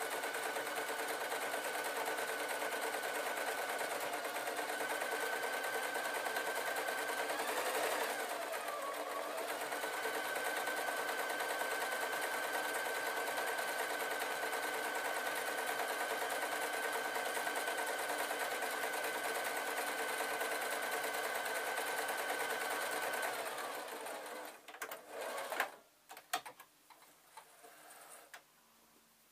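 Sewing machine stitching a seam, running steadily. It slows briefly about eight seconds in, picks up speed again, and stops near the end, followed by a few sharp clicks.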